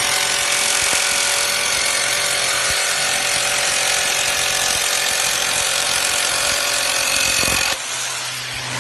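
Bosch jigsaw with a bi-metal blade running and cutting through a thin sheet: a loud, steady buzzing rasp with a constant whine. About a second before the end the cutting noise stops abruptly, leaving a quieter, steady low hum.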